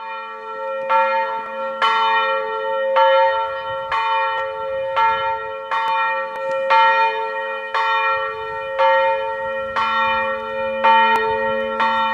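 A single church bell swinging and tolling, struck about once a second, each stroke ringing on into the next.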